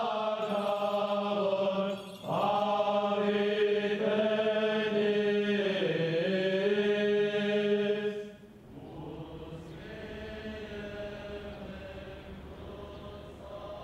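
Men's choir singing Armenian liturgical chant: a melody moving over a steady held low drone, with a short break about two seconds in. About eight seconds in the singing drops to a much softer held tone.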